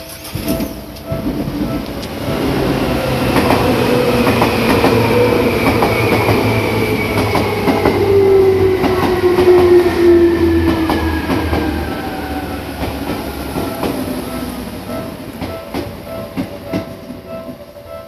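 Seibu 2000 series electric train passing over a level crossing: a heavy rumble with clicks from the wheels, and a whine that falls slowly in pitch, loudest about eight to ten seconds in before fading. The crossing's warning bell rings underneath, heard clearly again near the end.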